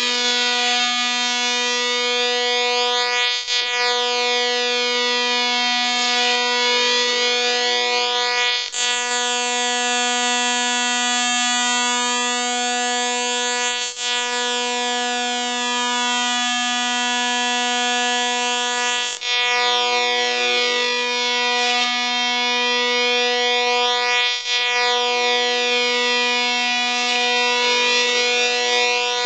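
Electronic music through small speakers: one buzzy synth note held at the same pitch, restarting every four to five seconds, with fainter short notes underneath and a slow swirling shimmer.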